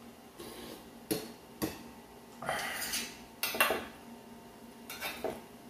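Metal chopsticks and spoon clinking against a stainless steel compartment tray while eating: a handful of sharp, separate clinks spread over a few seconds, with a short scraping stretch in the middle.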